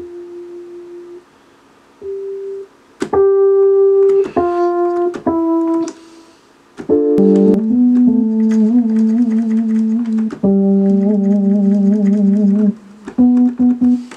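Software keyboard instrument in Ableton Live played from a Novation Launchkey 25 MIDI keyboard to show off its velocity: a few single held notes, the first ones soft and the later ones much louder, then sustained chords with a slight wobble in pitch, and a couple of short notes near the end.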